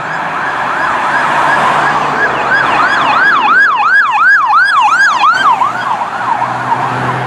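Police car siren on a fast yelp setting: quick rising-and-falling whoops about three a second, growing louder in the middle and fading near the end, over a low steady hum and road noise.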